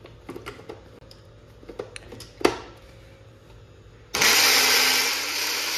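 A few clicks and knocks, the loudest about two and a half seconds in, then a blender starts about four seconds in and runs loudly, mixing frozen pineapple, frozen strawberries, yogurt and ice cubes.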